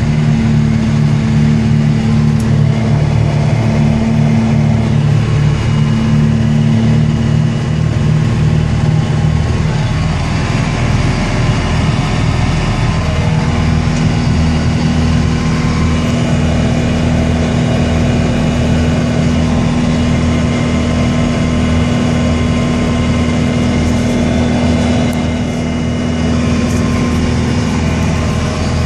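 John Deere 6320 tractor's diesel engine running steadily under load, driving a Normand inverted snowblower that is throwing snow through deep drifts. The engine note steps up slightly about 13 seconds in.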